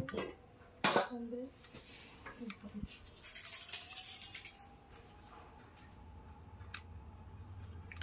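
Metal clicks and small taps of a screwdriver tester against a ceiling fan's terminal screws and wires as the test leads are fastened. There are two sharp clicks in the first second, then scattered fainter ticks.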